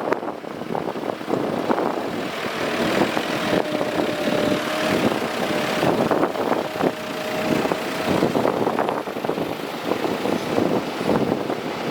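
Excavator running and working: a dense, rough engine noise with scattered knocks, and a faint steady whine for several seconds in the middle.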